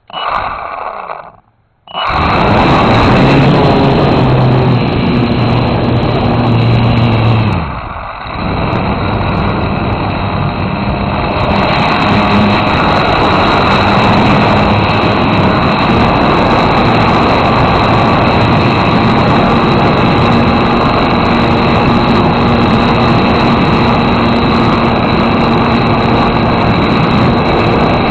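Foam RC airplane's electric motor and propeller running loudly and steadily, starting abruptly after a short burst, with a brief dip about eight seconds in.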